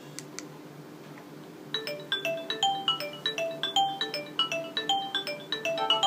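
Nokia 2310 mobile phone previewing a ringtone through its small built-in speaker: a quick melody of short notes starts about two seconds in and gets busier near the end, with several notes sounding at once. Just before it, two quick clicks come from the navigation key being pressed.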